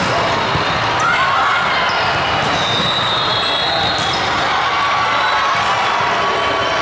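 Volleyball being struck in a rally: several sharp slaps of hands on the ball, a second or so apart, over the steady din of voices and play filling a large hall.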